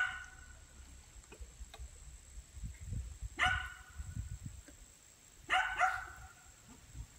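A dog barking in short barks: once at the start, once about three and a half seconds in, and a quick double bark near the end.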